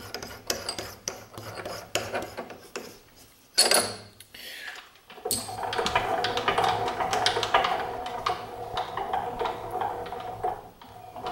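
Small metal clicks and clinks as a 1/2 inch drill bit is handled and fitted into the mill's drill chuck, then rubbing and a knock as the camera is handled and repositioned. From about five seconds in, a steady hum sits under the rubbing.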